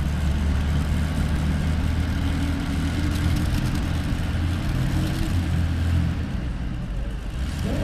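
Pulling tractor's V-12 aircraft engine from a P-51 Mustang idling steadily as the tractor creeps along at low speed, with no hard revving.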